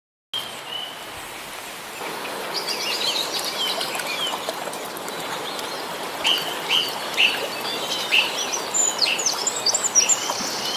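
Several birds chirping outdoors, many short quick calls over a steady background hiss.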